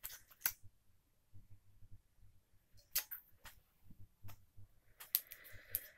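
Small makeup items, such as lip gloss tubes, being handled: a few light clicks and taps in a quiet room, with a short cluster of them near the end.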